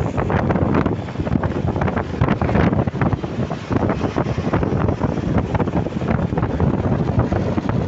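Heavy wind buffeting on the microphone of a moving vehicle, over a dense rumble of road and engine noise.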